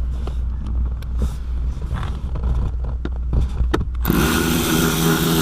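Scattered small clicks and taps of tool handling over a steady low hum. About four seconds in, a cordless drill-driver whirs steadily, spinning out an 8mm fastener on the blower motor resistor.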